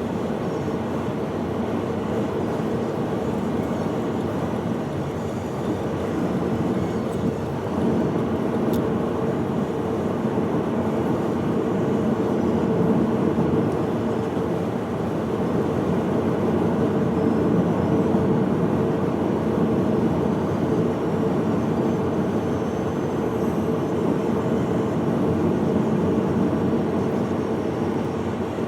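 Steady running noise of a moving vehicle, with a faint low hum held throughout.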